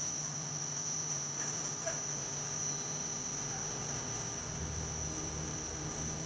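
Crickets trilling steadily as one continuous high-pitched note, over a low hum that gains a deeper rumble a little past the middle.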